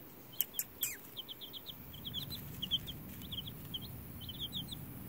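Week-old White Leghorn chicks peeping: many short, high, slightly falling chirps in quick runs, a few louder ones about half a second in. A low rumble joins about two seconds in.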